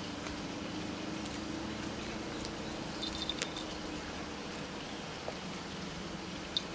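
Steady background hiss with a low hum, and a few faint sharp clicks about three seconds in and again near the end.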